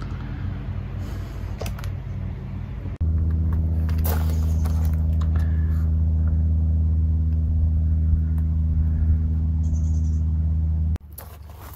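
Engine idling: a steady low hum with a few overtones, louder from about three seconds in and cutting off suddenly near the end. A few light clicks of plastic packaging being handled about four seconds in.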